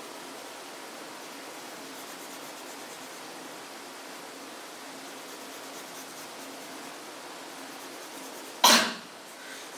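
Steady hiss of a colored pencil shading on paper, then one loud, short cough near the end.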